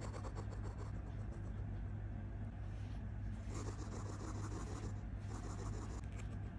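A terry towel being rubbed and patted over a hedgehog's quills to dry it after a bath: an irregular scratchy rustling, over a steady low hum.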